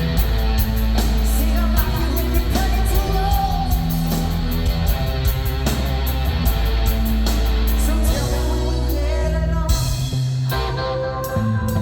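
A rock band playing live: electric guitar, drums and singing, loud and continuous. Near the end the drums largely drop away and the guitar carries on.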